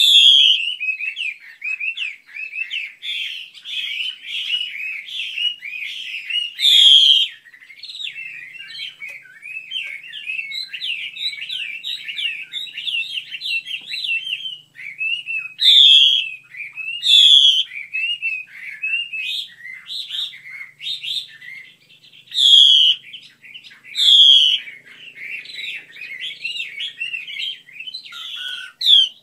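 Female Chinese hwamei calling: a rapid, unbroken run of short chattering chirps, broken every few seconds by loud, sharp down-slurred notes.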